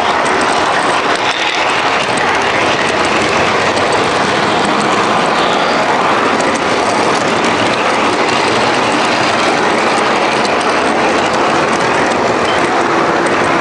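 MTH model subway train running along its track: steady rolling noise of the wheels and motor.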